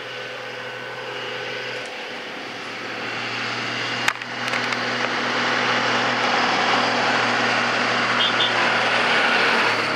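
Tractor diesel engine running at a steady pitch as the tractor approaches, getting louder from about three seconds in. A single sharp click about four seconds in.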